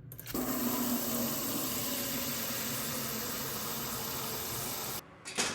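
A steady rushing hiss that cuts off suddenly near the end, followed by one brief burst of noise.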